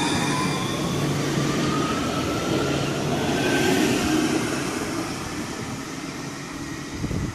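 HTM Alstom RegioCitadis tram pulling away from a platform. Its electric traction motors give a whine that rises in pitch as it accelerates over rolling rumble from the wheels, which peaks about four seconds in and then fades as the tram moves off.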